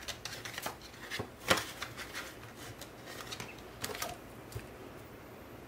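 Paper bills and cash envelopes being handled: soft rustling with light clicks and taps, a few louder ones in the first second and a half, dying down near the end.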